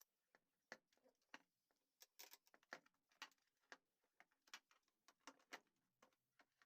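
Faint, irregular light clicks and taps, a dozen or so scattered through the stretch, from the washing machine's control board and its plastic housing being handled and lifted out.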